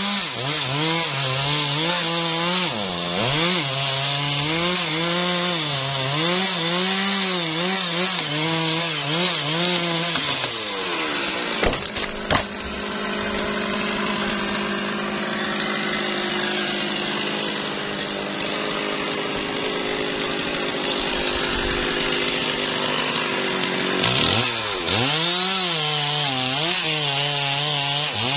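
Large Stihl two-stroke chainsaw cutting into a hardwood trunk at high revs, its engine note dipping and rising as the chain bites under load. About twelve seconds in there are a couple of sharp knocks and the saw's note evens out for a while. Then it bogs and recovers again as cutting resumes near the end.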